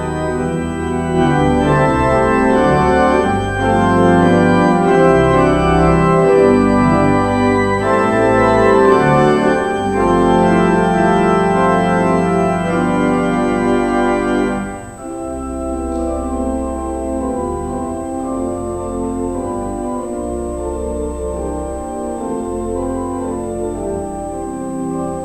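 Church pipe organ playing sustained chords over a low pedal bass, loud at first, then dropping to a softer, quieter passage about fifteen seconds in.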